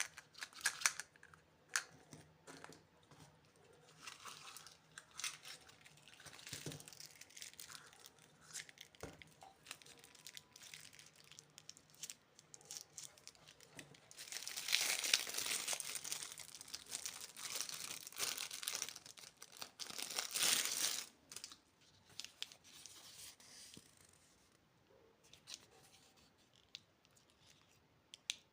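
Candy packaging being torn open and crinkled: scattered crinkles and clicks, then a longer, louder stretch of tearing and rustling about halfway through that stops suddenly some seven seconds later.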